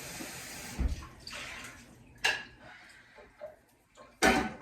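Kitchen tap running water, turned off about a second in, followed by two sharp knocks of kitchenware, the second and louder one near the end.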